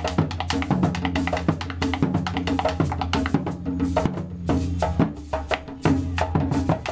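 Background music: an upbeat percussion-led track with a fast, steady drum beat over a bass line.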